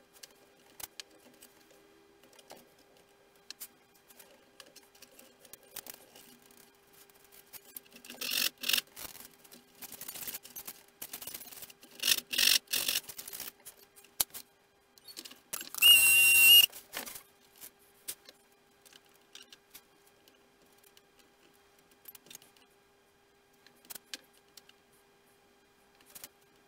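Small clicks, taps and rustles of hands working small model parts into the nose of a model aircraft fuselage, busier a third of the way in. About two-thirds of the way in comes one loud burst of hiss with a whistling tone lasting about a second, starting and stopping abruptly, like a short spray from an aerosol can.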